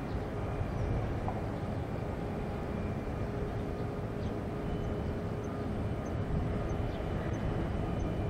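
Distant Boeing 787-8 airliner on landing approach: a steady low rumble from its Rolls-Royce Trent 1000 turbofan engines.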